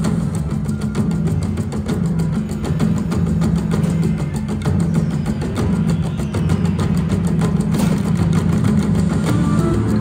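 Cats video slot machine's free-games bonus sounds: the game's music, with a steady low drone and rapid ticking throughout, while the reels spin for the next free game.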